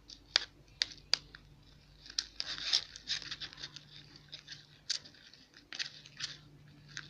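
Spoon stirring glue-based slime in a bowl as borax is worked in, a sticky, crackly squelching as the mixture thickens into slime, with several sharp clicks.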